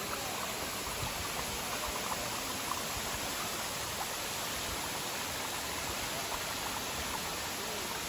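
Steady rushing of water.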